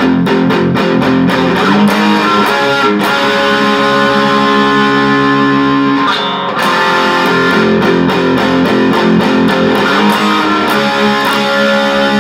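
Electric guitar tuned down a half step to E flat, playing a rock verse chord pattern: a sustained chord, palm-muted chugging, then A and D chord shapes. The pattern is played twice, with a brief gap about six seconds in.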